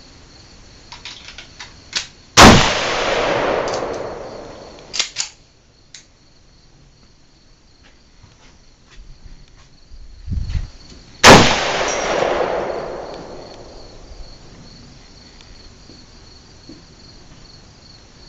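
Two single shots from an AK-pattern rifle in 7.62×39 mm, about nine seconds apart, each followed by a long echo that dies away over a couple of seconds. Light clicks and knocks sound between the shots.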